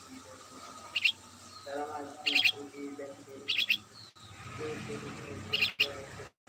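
A small bird chirping: four short, sharp high chirps spaced a second or so apart, some in quick doubled notes. Lower-pitched calls sound underneath between the chirps.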